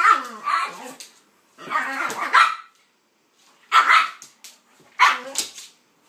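Dog barking during rough play, in about four short bursts with brief pauses between them.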